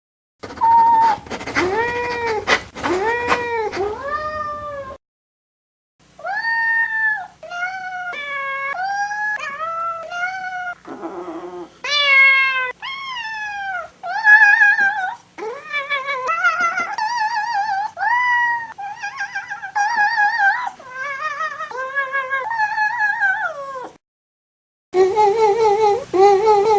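Cat meows strung together into a yodeling tune: a fast run of short meows stepping up and down in pitch, many with a warbling waver. The tune breaks off briefly about five seconds in and again near the end.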